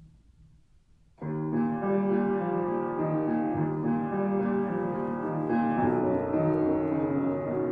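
Grand piano begins a slow melodic instrumental piece about a second in, after a brief hush. Near the end, a bowed double bass joins with low sustained notes.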